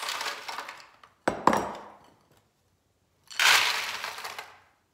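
Dry snack pieces (cereal, cheese puffs and peanuts) poured from glass bowls into a disposable aluminium foil pan. There are two sharp glass clinks about a second and a half in, and a second pour starts about halfway through and fades out.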